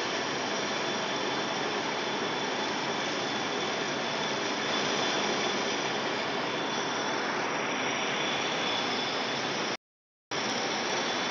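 Metal lathe turning a large metal workpiece: a steady machine hiss of the spinning work and the cutting tool, with a faint high steady whine. The sound drops out completely for about half a second near the end.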